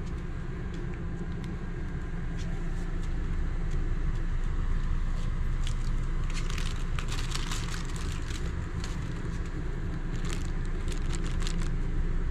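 A steady low rumble underneath, with scattered clicks and crinkling from about six seconds in as a French bulldog puppy plays with a toy that is shaken by hand.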